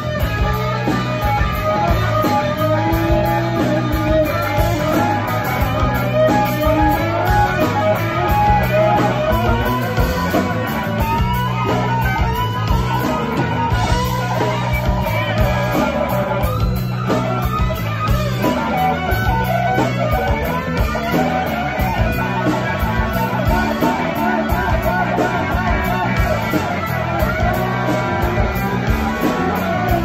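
Live rock band playing an instrumental passage: electric guitar lines with bending notes over bass guitar and drums.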